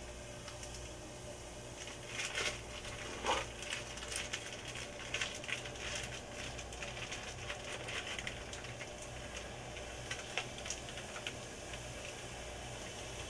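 Funnel cake batter frying in hot oil in a small deep fat fryer: a steady crackling sizzle, with a couple of louder bursts of crackling about two and three seconds in.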